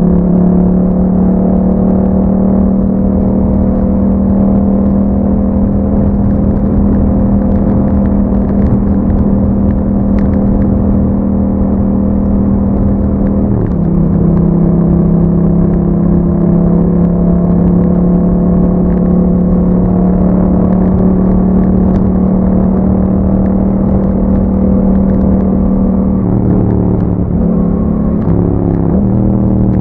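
Yamaha MT-07's 689 cc parallel-twin engine running through an Akrapovic exhaust, holding a steady engine speed while the bike is ridden. The pitch drops about 13 seconds in, then steps up and down several times near the end.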